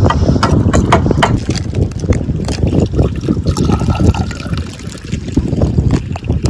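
Green pani (spiced mint water) being poured from a steel mug into a drinking glass, splashing as the glass fills. In the first second or so a steel ladle clinks a few times against the pani tank.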